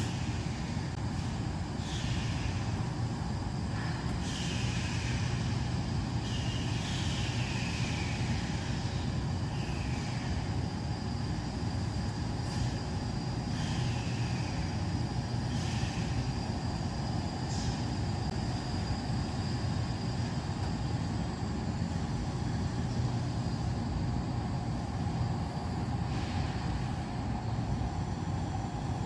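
Wood-burning gasification stove burning hard: a steady low rumble of the fire drawing, with occasional sharp crackles. Short high chirps that fall in pitch come and go over it, about a dozen in all.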